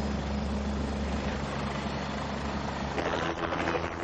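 Helicopter's turbine engine and rotor running, a steady drone heard inside the cabin. About three seconds in it changes to a helicopter running on the ground heard from outside.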